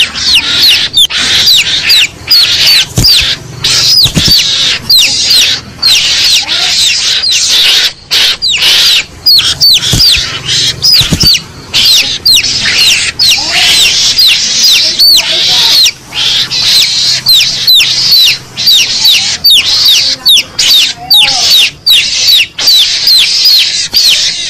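Mongoose lure call: loud, shrill squeaking chirps, each a quick falling note, repeated several times a second in an unbroken run, a call meant to provoke a mongoose into coming out.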